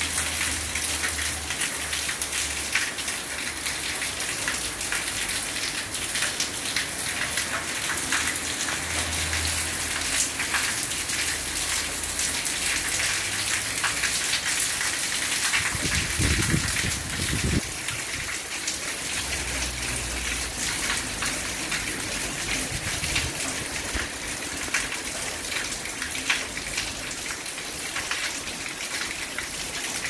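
Heavy downpour: a steady rain hiss with a dense patter of drops striking nearby surfaces.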